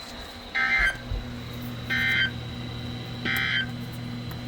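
Emergency Alert System end-of-message data bursts: three short, buzzy digital squawks about a second apart, the coded signal that closes an alert broadcast. A low steady hum runs underneath.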